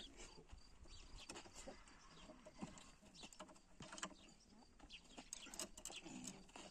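Near silence: faint scattered clicks and rustling, with faint animal calls in the background.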